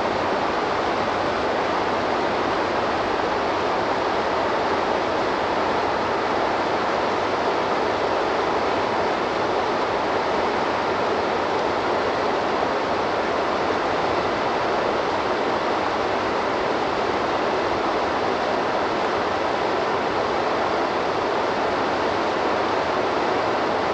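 Waterfall on a river: a steady, unbroken rush of falling water.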